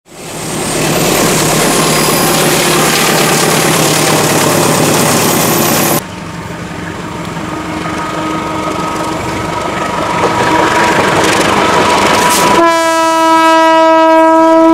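Train noise from a passing train. After a cut, a CC 201 diesel locomotive approaches, its running noise growing steadily louder. Its horn then sounds one long, loud blast starting about twelve and a half seconds in.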